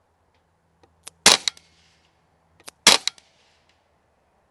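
KalibrGUN Springbok .22 semi-automatic PCP air rifle firing two shots about a second and a half apart. Each shot has a short click just before and just after it.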